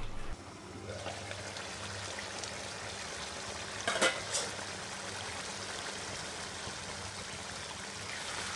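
Thick mutton do pyaza gravy bubbling and sizzling in an open kadhai, a steady hiss of the onion-based curry cooking down with oil risen to its surface. Two quick clinks about four seconds in.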